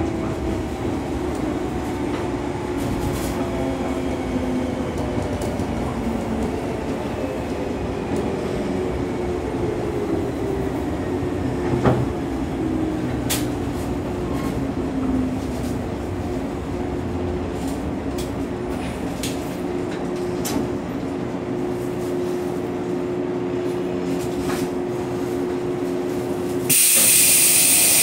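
Running sound inside a JR West 115 series electric train, its MT54 traction motors and gears whining in tones that fall slowly in pitch as the train slows. A sharp crack comes about twelve seconds in, and near the end a loud hiss of air starts.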